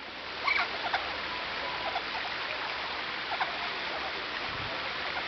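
A steady rushing hiss, with a few brief, faint calls from vinaceous-breasted amazon parrots scattered over it.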